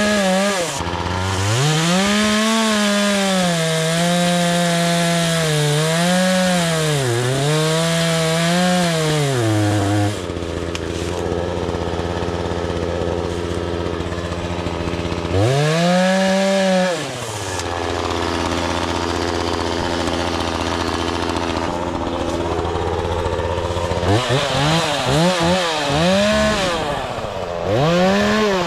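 Bilt Hard TNA-0006 58cc two-stroke chainsaw at full throttle cutting into a dead tree's trunk, its engine speed dipping and recovering every second or so as the chain bites. About ten seconds in it drops to idle, is revved once briefly, and is blipped several times in quick succession near the end.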